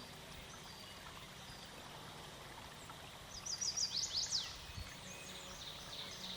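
A songbird singing a quick run of falling chirps about three and a half seconds in, over a faint steady outdoor background.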